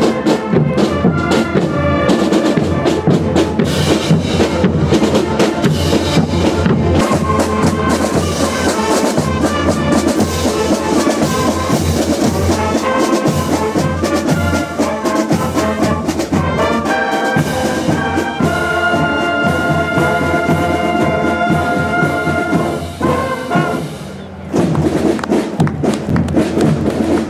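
Marching band playing as it passes: bass drums and cymbals beat a steady march under brass, with saxophones, trumpets and sousaphone. About two-thirds of the way through the brass holds long chords, the music dips briefly, then the drums start up again.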